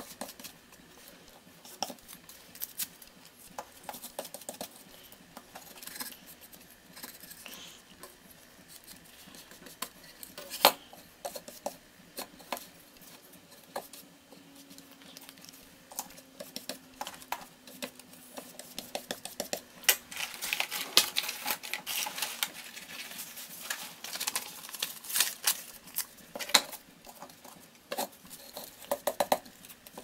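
Paintbrush and collage work: small clicks and taps of a brush against a plastic pot of matte medium and the work surface, with paper rustling and scraping as glued pieces are brushed down. The rustling is busiest about two-thirds of the way through.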